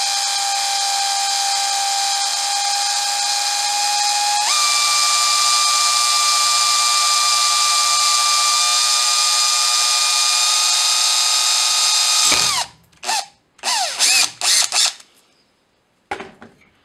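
Small electric drill with a 1.6 mm bit drilling into a brass G-gauge rail: a steady motor whine that steps up in pitch about four and a half seconds in and stops about twelve and a half seconds in. A few short spurts of the motor follow.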